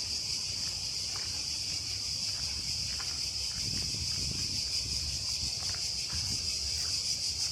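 A chorus of cicadas buzzing steadily in a fast, even pulse, with faint footsteps ticking along a path and a low rumble underneath.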